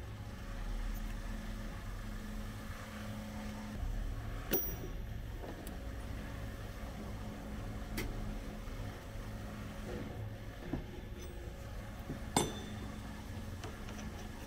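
Small metal clinks and taps from a half-inch end mill being changed by hand in its tool holder, with three sharper clinks spread through, over a steady low hum.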